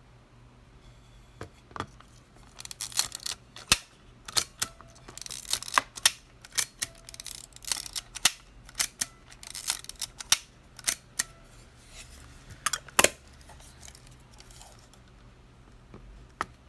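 Minolta Hi-Matic 7S film camera being worked by hand: a run of irregular sharp mechanical clicks and snaps from its controls and shutter. The clicks come thickest through the middle, the loudest about thirteen seconds in, and thin out near the end.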